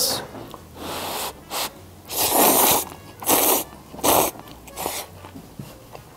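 A man slurping sauce-coated yakisoba noodles: a series of about six sucking slurps, the longest and loudest about two seconds in.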